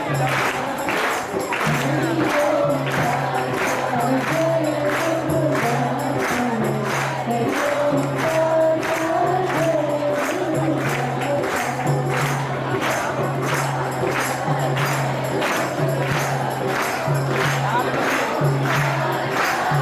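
Devotional music: singing over an even beat of jingling hand percussion, about two strokes a second, with a low sustained tone underneath.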